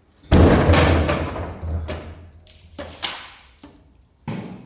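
Water splashed onto a newly built cement wall to cure it, in several splashes. The first and loudest comes about a third of a second in and trails off over a second or so, and three smaller splashes follow.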